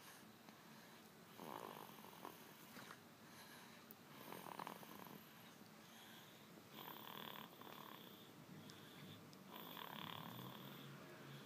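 Snoring, a drawn-out snore roughly every two to three seconds.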